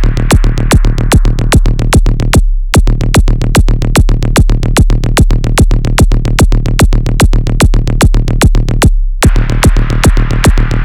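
Electronic dance track: a steady, fast kick-drum beat, about four strokes a second, over deep bass. The beat drops out briefly twice, a little over two seconds in and about nine seconds in. A higher hissing layer falls away after the first break and returns after the second.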